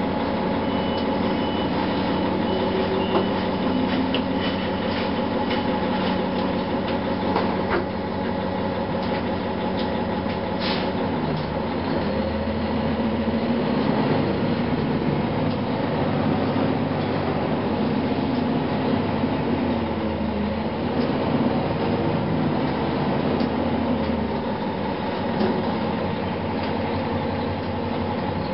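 A Gillig Phantom transit bus's Cummins ISM (M11) diesel engine running under way, heard from inside the passenger cabin, with scattered rattles and clicks from the body. The engine note gets fuller about twelve seconds in.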